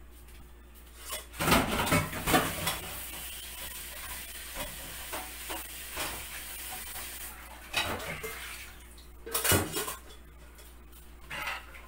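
Tap water running over freshly blanched spinach to cool it, a steady hiss for about six seconds, with dishes and utensils clattering around it and a sharp knock near the end.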